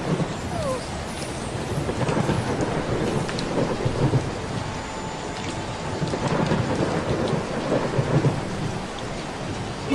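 Rain falling steadily, with low rumbles of thunder now and then: a thunderstorm.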